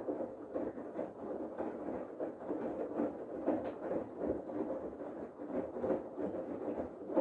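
Bosch Serie 8 front-loading washing machine in its main wash: the drum turning with water and laundry sloshing in an irregular churn over a faint steady motor hum.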